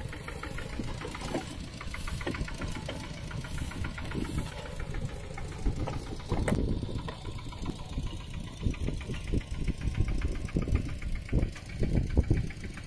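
Mini tractor engine running with a rapid knocking beat, louder and more uneven in the second half.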